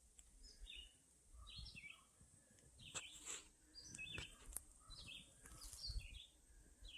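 Faint bird chirps, short calls repeating about once a second, over a faint low rumble of outdoor background noise.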